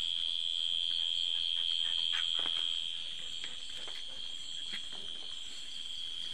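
A steady, high-pitched chorus of night insects, a little louder for the first three seconds, with a few faint scattered clicks.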